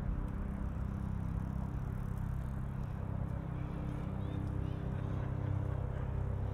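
Steady low rumble of city traffic, with a vehicle engine humming.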